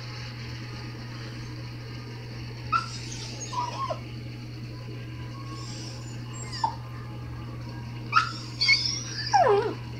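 Small scruffy dog whining: a few short high cries spaced seconds apart, then near the end a longer cry that slides down in pitch.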